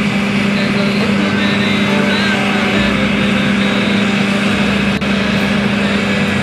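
Combine harvester running steadily while harvesting, a constant engine hum under the rushing noise of its machinery.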